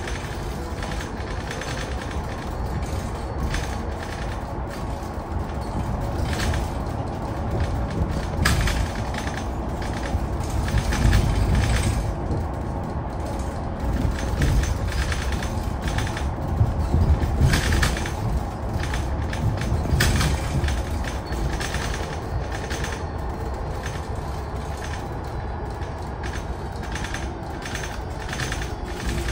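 Cabin noise aboard a Mercedes-Benz eCitaro G electric articulated bus on the move: a steady low road rumble with frequent clattering rattles and knocks from the body and fittings over the road surface.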